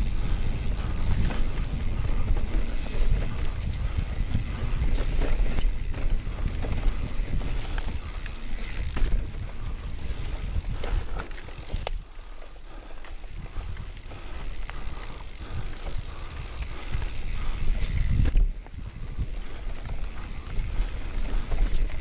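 Mountain bike riding down a dirt forest singletrack: wind buffeting the camera microphone over the rumble of knobby tyres, with frequent knocks and rattles from the bike over bumps and roots. The noise eases for a couple of seconds just past the halfway point.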